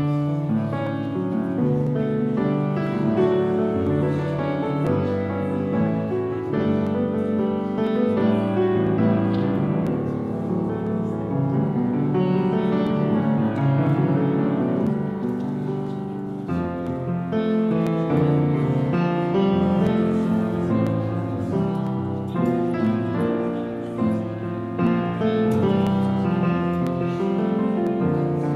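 Instrumental piano music playing continuously.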